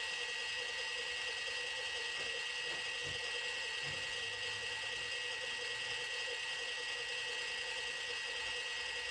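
Small electric motor and gears of a radio-controlled toy Mini Cooper S running at a steady speed, with a high, even whine.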